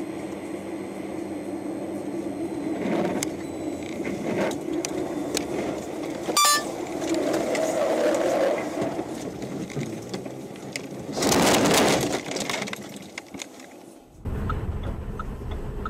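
Car cabin and road noise from a dash cam as the car slides off a snowy road. There is a sharp click about six seconds in, then a loud rushing crunch lasting about a second as the car ploughs into deep roadside snow. Near the end the sound cuts to a lower traffic rumble.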